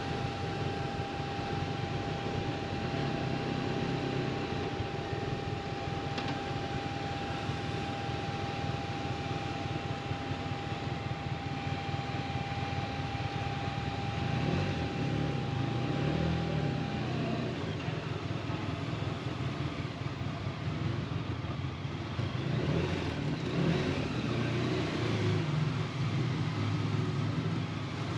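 Motorcycle on the move: engine running under wind and road noise, with a thin steady whine that drops slightly in pitch about two-thirds of the way through.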